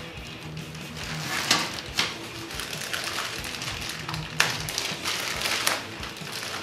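Clear plastic packaging bag crinkling and rustling as it is handled and pulled open, with a few sharper crackles through it.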